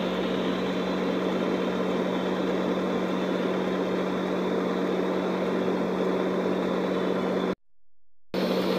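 An engine runs steadily with a constant low hum, heard from inside a car's cabin on a car ferry. The sound cuts out for under a second near the end.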